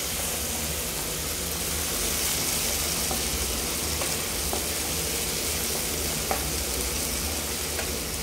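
Chopped onions and tomatoes frying in oil in a non-stick kadai: a steady sizzle while they are stirred with a wooden spatula, with a few light taps of the spatula against the pan.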